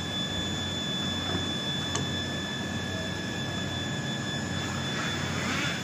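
Steady mechanical hum from a running machine, with a constant high whine over a low drone.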